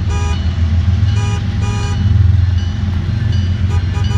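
Diesel freight locomotive horn sounding several short toots, one near the start and two more a little over a second in, then a fainter one near the end, over a steady low rumble.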